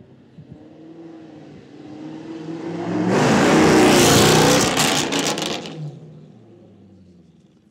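Jaguar F-Type's supercharged V8, fitted with a Capristo valve-controlled sport exhaust, driving past under throttle. It builds as it approaches, is loudest as it passes about four seconds in, and gives a rapid run of sharp exhaust cracks before fading away.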